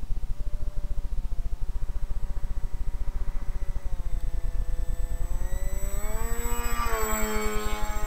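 Whine of a small radio-controlled flying boat's motor and propeller, faint at first, then rising in pitch and growing loud as it is throttled up. It drops sharply in pitch about seven seconds in as the model passes close by. A steady low rumble runs underneath.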